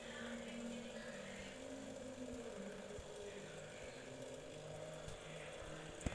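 Steady hum of a small motor with a faint hiss, and one sharp click near the end.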